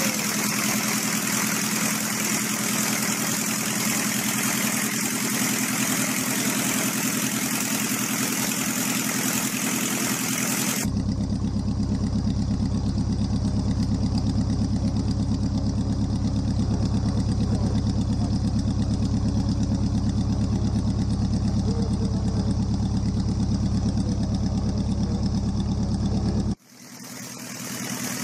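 Small piston engine of a Wallis autogyro running steadily and turning its pusher propeller. About eleven seconds in the sound changes abruptly to a heavier, throbbing running note, and a couple of seconds before the end it drops away suddenly, then comes back.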